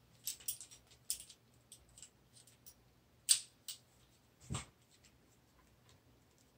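Small parts and tools handled on a rifle during reassembly: scattered light clicks and taps of metal and plastic, with a sharper click about three seconds in and a duller knock about a second later.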